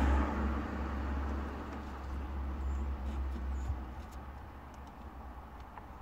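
Low steady rumble of a Nissan Skyline R32's engine idling, heard inside the cabin. It is louder at first and eases off over the first few seconds, with a few faint clicks.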